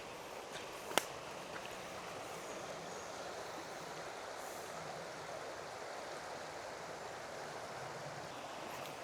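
Steady rushing of a flowing creek, with a single sharp click about a second in.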